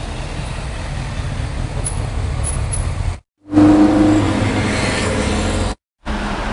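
Cars and street traffic heard in short spliced clips with two brief dropouts between them. A low rumble comes first, then a louder stretch where a car engine runs with a steady hum.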